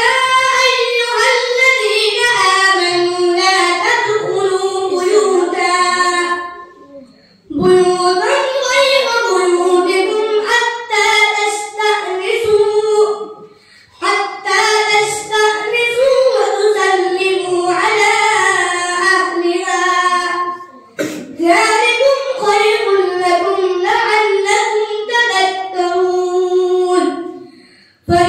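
A boy reciting the Quran into a microphone in a melodic, drawn-out tajweed style, in four long phrases with short breaths between them.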